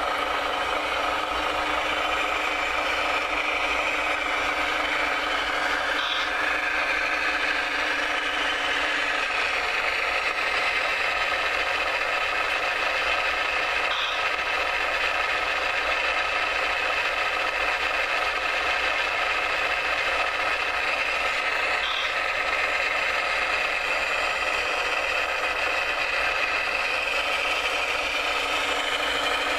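Motors of a radio-controlled digging machine whining steadily, with a light mechanical rattle. The pitch shifts about a third of the way in and shifts back near the end as the machine works.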